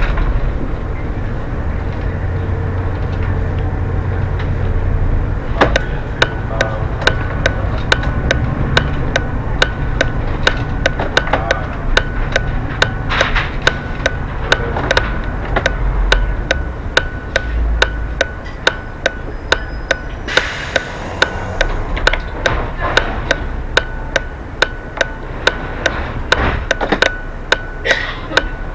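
Bus driving along, its engine and road noise making a steady low drone, with a sharp regular ticking about twice a second that starts a few seconds in and a short hiss about two-thirds of the way through.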